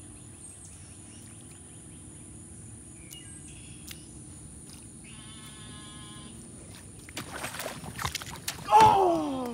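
A largemouth bass strikes a topwater frog lure near the end, a burst of splashing on the water's surface, followed at once by a loud startled cry that falls steeply in pitch. Before that only a low steady outdoor background, with a short bird chirp and a brief even-toned call.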